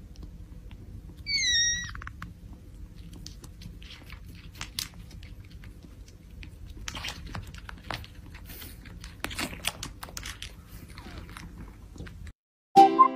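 Kittens suckling milk from a small feeding bottle: soft wet smacking and clicking sounds over a steady low hum. About a second and a half in, one kitten gives a short, high mew that drops in pitch.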